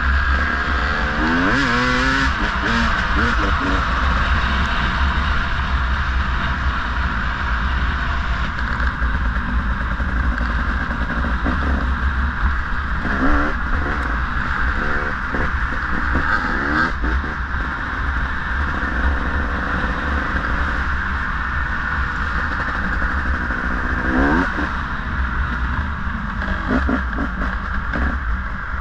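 Dirt bike engine running under load on a trail ride, its pitch rising in several quick revs as the throttle is opened, over a steady rushing noise.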